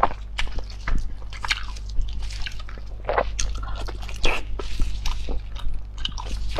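Close-miked eating sounds: a person chewing and biting with wet, smacking mouth noises and irregular clicks, over a steady low hum.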